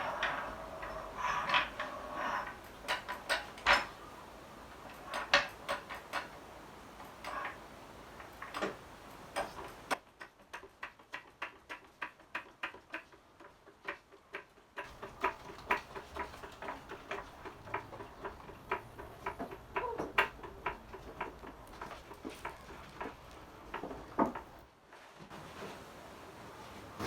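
Hydraulic floor jack being worked to raise a car: a long run of sharp metallic clicks and knocks, with a quicker, even ticking for a few seconds partway through.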